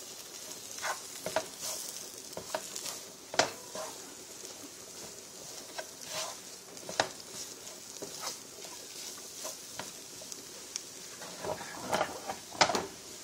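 Red curry paste and paprika frying in oil in a pan, sizzling steadily while a spoon stirs and scrapes through the thick paste, with irregular knocks against the pan.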